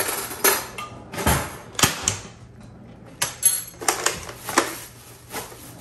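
Kitchen utensils being handled on a countertop: a series of irregular sharp clicks and clinks.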